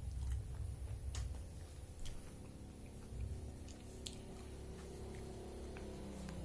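Biting into and chewing a piece of fresh pineapple: wet, squishy chewing with a few sharp mouth clicks.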